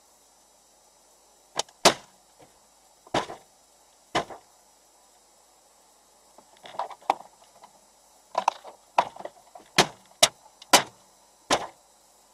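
A series of hard bangs on a car, heard from inside it: about a dozen irregular blows, some in quick pairs. The loudest fall about two seconds in and near the end.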